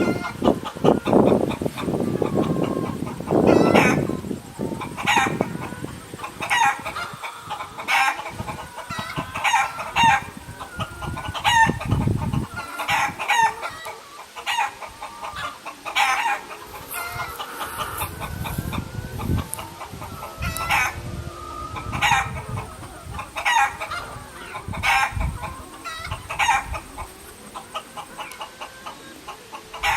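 A flock of chickens clucking, many short calls repeating throughout, with a few longer drawn-out calls mixed in. A low rumble sits under the first few seconds.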